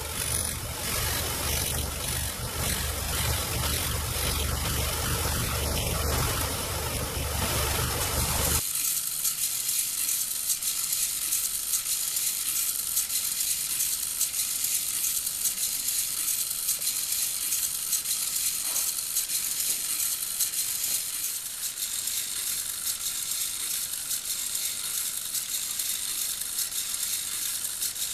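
An electric disc sander runs for about the first eight seconds, sanding a small plywood disc, then stops suddenly. After that, small hobby servo motors buzz and tick steadily through their plastic gears as they swing a cam-shaped disc and wire control arm back and forth.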